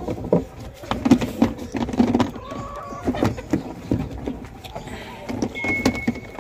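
Irregular knocking and clattering, several sharp knocks a second, with two brief high steady tones, one a little before halfway and one near the end.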